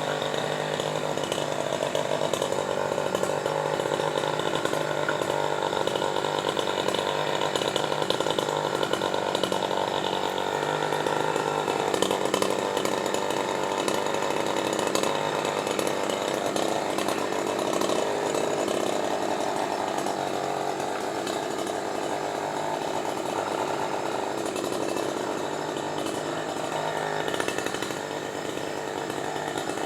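Chainsaw running continuously, its engine note wavering slightly in pitch.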